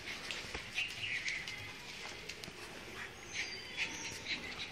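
Dogs tussling over a towel: faint scuffling and clicks, with a few short high-pitched chirps about a second in and again near the end.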